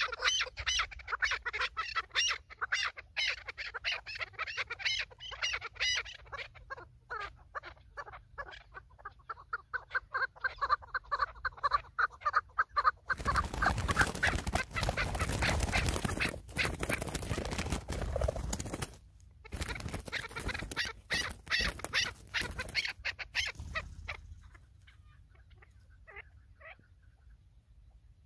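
Chukar partridges calling in a fast run of repeated clucking notes. About halfway through this gives way to a loud scuffle of beating wings as two chukars fight, lasting about ten seconds with a short break. Near the end it goes quiet apart from a few faint calls.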